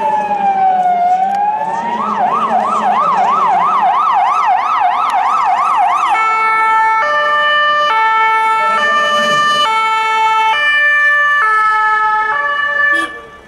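Ambulance electronic siren. It starts as a slow wail, switches to a fast yelp of about three cycles a second about two seconds in, and changes to a two-tone hi-lo about six seconds in. It cuts off just before the end.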